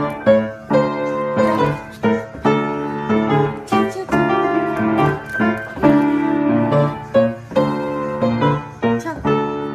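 Piano played with both hands: a run of notes and chords struck in quick succession.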